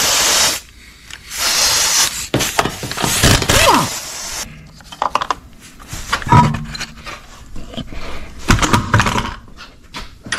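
Three loud whirring, hissing bursts of a power tool in quick succession, each winding down with a falling pitch, then lighter metallic clicks and knocks and another short burst near the end.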